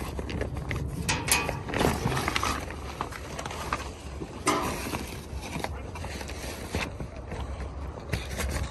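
Woven plastic tarp being pulled back off a car, rustling and crackling in irregular bursts.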